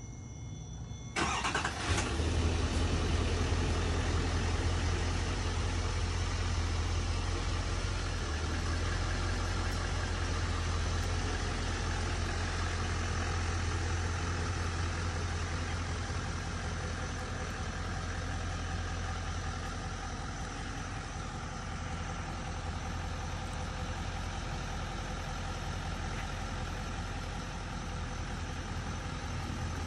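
A Duramax V8 turbodiesel in a 2016 Chevrolet Silverado dually starts about a second in, then idles steadily with a low, even rumble.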